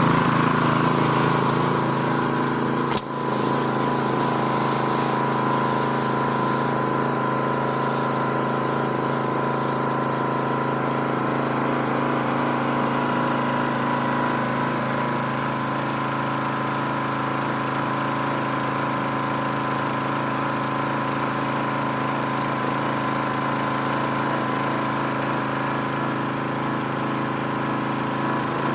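Gas-engine home pressure washer running steadily, its pump feeding soap solution from a bucket through the spray wand, with the hiss of the spray. A sharp click about three seconds in.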